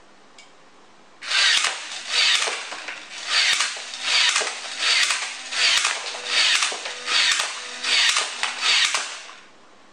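Battery-powered card launcher of the Bá Vương Xạ Thủ Hỏa Chiến Kỵ toy firing cards in rapid succession. There are about eleven whirring shots, roughly one every three-quarters of a second, each with sharp clicks.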